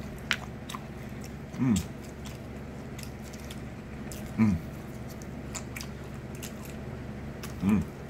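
A man chewing and biting fried chicken close to the microphone, with crisp wet mouth clicks scattered throughout. Three times, about every three seconds, he gives a short low hum that falls in pitch.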